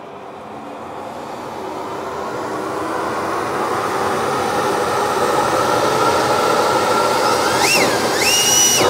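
Oneida Dust Gorilla Pro 5 horsepower cyclone dust collector starting up: the motor and the rush of air through the spiral ductwork grow steadily louder as it comes up to speed. Near the end a brief high tone glides up and then holds for a moment.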